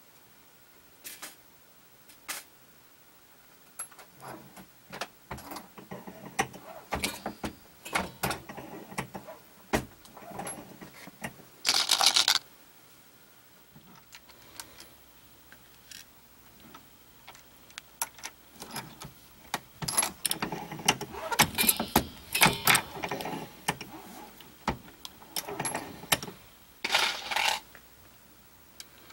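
Irregular metallic clicks, clinks and short rattles of loose brass 9mm cartridge cases, copper-plated bullets and reloading-press parts being handled. The rattling is densest in a brief burst partway through and in a busier stretch near the end.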